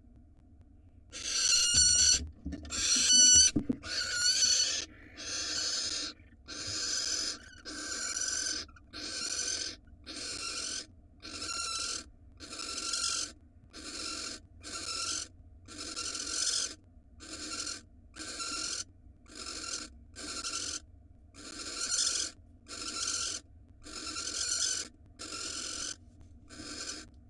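Barn owl giving a long series of rasping, hissing calls, about one a second, with a few louder, more ringing calls near the start.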